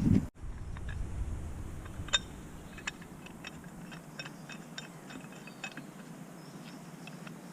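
A series of light, irregular mechanical clicks and ticks, the sharpest about two seconds in.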